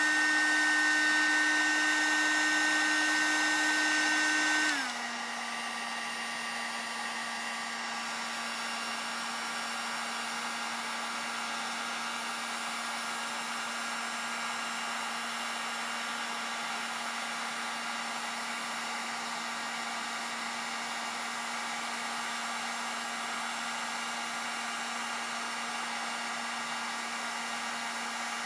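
Harbor Freight heat gun running steadily, a fan whine over a rush of air, as it heats a PVC pipe elbow until the plastic softens. About five seconds in, its whine drops to a lower pitch and gets quieter, then holds steady.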